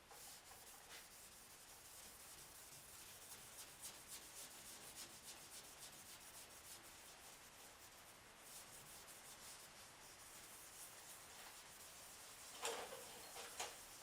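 Faint hand sanding with a sanding block on the primed body of a Porsche 911: quick repeated rubbing strokes, with two louder knocks near the end.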